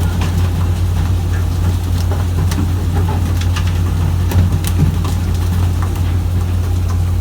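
A fishing boat's engine runs steadily with a low drone. Scattered sharp clicks and knocks come over it, the loudest about four and a half seconds in.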